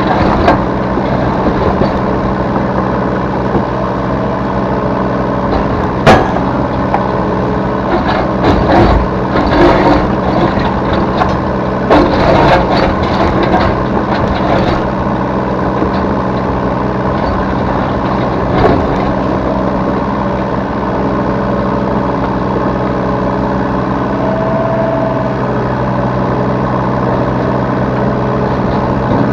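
Diesel engine of a Yanmar B3 Sigma 3-ton mini excavator running steadily, heard from the operator's seat. A sharp knock about six seconds in, a spell of clanking and knocking a couple of seconds later, another knock near nineteen seconds, and a brief whine near twenty-five seconds.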